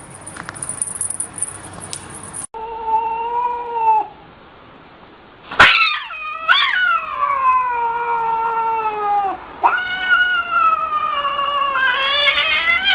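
Domestic cat yowling in long, drawn-out caterwauls. A short cry comes first, then a long one that starts with a sharp yelp about halfway in and slowly falls in pitch, then a third that is still going at the end.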